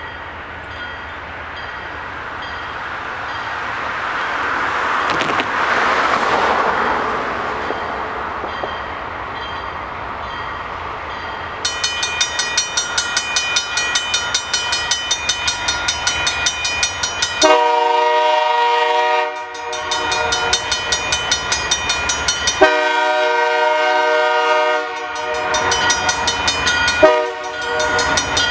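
Railroad crossing bell ringing fast and steadily from about twelve seconds in, the sign that the crossing signals have activated for an approaching train. Over it, the approaching train's multi-chime air horn sounds three long blasts for the crossing, the first about seventeen seconds in. Earlier, a rushing noise swells and fades around six seconds in.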